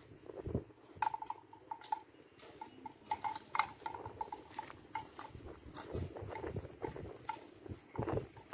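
Cattle grazing and stepping at a roadside, with soft tearing and rustling of grass. Short clicks and a run of brief clinks at one pitch are densest in the first few seconds.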